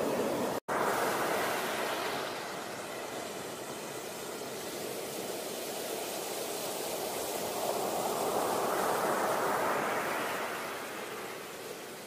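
Sea surf breaking on a sandy beach: a continuous rush of breaking waves and foam that swells about a second in and again around eight to ten seconds in. The sound cuts out for a split second just under a second in.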